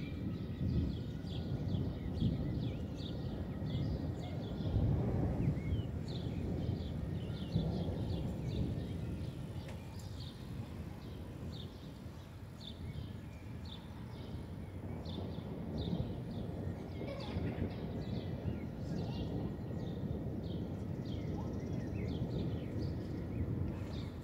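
Birds chirping over and over, high and short, above a low, gusting rumble of wind on the microphone.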